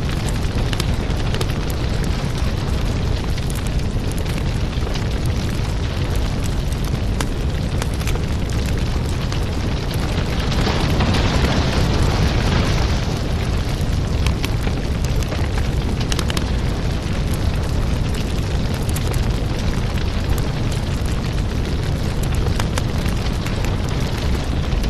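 Burning firewood: a steady low rumble of flames with frequent crackles and pops, and a louder hiss for a couple of seconds about ten seconds in.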